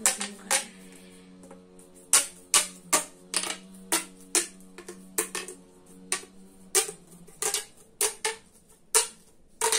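Plastic pop tubes being collapsed ridge by ridge, each fold snapping shut with a sharp click, a couple of clicks a second at uneven spacing. A faint steady low hum lies under the clicks until about seven seconds in.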